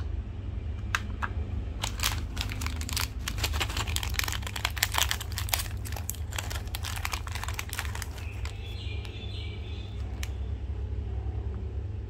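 Packaging being handled and crinkled, a dense run of sharp crackles that thins out after about eight seconds.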